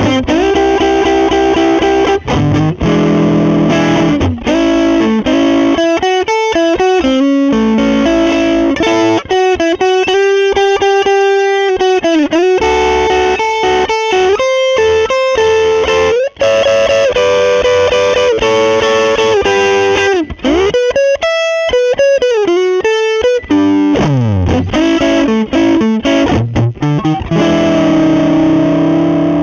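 Electric guitar (Telecaster with a Seymour Duncan Jazz humbucker) played through a Lovepedal Blackface Deluxe overdrive pedal with its gain turned all the way up. The playing mixes chords with sustained single-note lines, with string bends about two-thirds of the way through.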